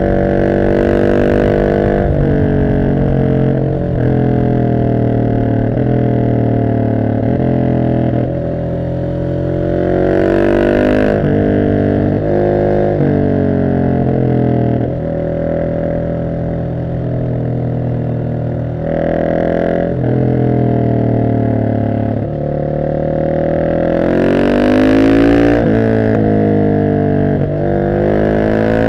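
2021 Husqvarna 701 SM's big single-cylinder engine through an Arrow exhaust, decatted with the dB killer in, pulling hard through the gears. Its pitch climbs and drops back again and again as the rider accelerates and shifts.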